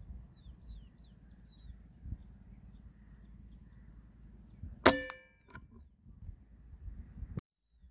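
Small birds chirping in short high notes over a low wind rumble, then about five seconds in a single shot from a Kral Puncher Breaker .22 (5.5 mm) PCP air rifle: a sharp crack with a metallic ringing tail, followed by a fainter knock about half a second later. The sound cuts off abruptly near the end.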